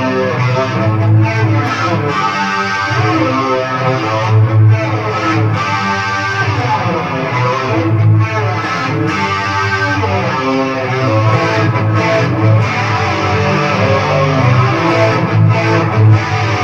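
Two layered guitar tracks playing back together, plucked and strummed with reverb and echo on them.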